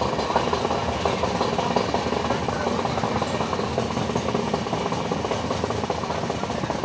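Running noise of an Indian Railways LHB passenger coach at speed, heard from aboard: a steady rumble of wheels on rail with a dense fine rattle and no distinct clickety-clack beat.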